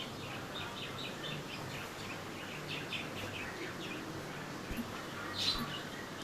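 Birds chirping: short high chirps, a few a second, over a faint low hum, with two soft knocks near the end.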